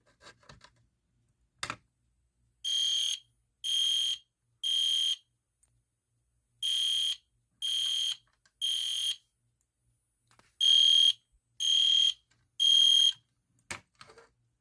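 EST Genesis fire alarm horn sounding a code 3 (temporal-3) evacuation pattern: three sets of three high-pitched beeps, each about half a second long, with a longer pause between sets; the last set is louder. A sharp click comes just before the first set and another shortly before the end.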